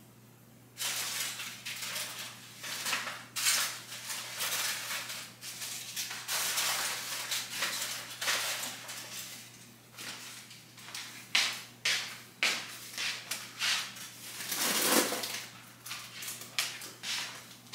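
Food being put away at a kitchen counter: an irregular run of crinkling and rustling from wrappings and containers, mixed with clicks and clatters of dishes. There is a louder clatter near the end.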